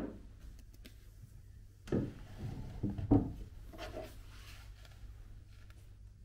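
Soft knocks and rubbing from hands and the camera handling a wooden desk: one knock at the start, then a cluster of knocks and scrapes about two to three seconds in.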